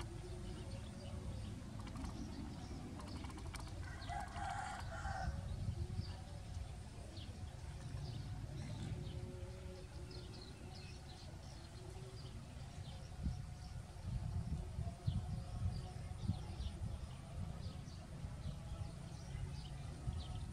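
A rooster crows once, about four seconds in, in one call of about a second and a half, with fainter short calls later. A steady low rumble runs beneath.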